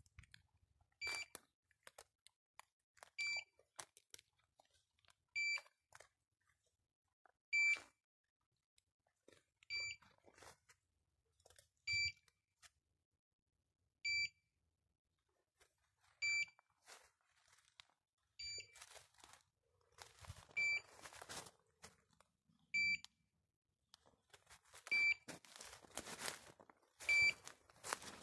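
Electronic beeper collar on a hunting English setter, giving a short high beep about every two seconds. Rustling of steps through grass and brush grows louder over the last ten seconds.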